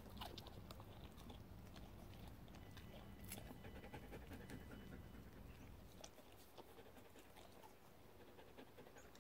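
Faint panting from a Dutch Shepherd dog, with a few small clicks.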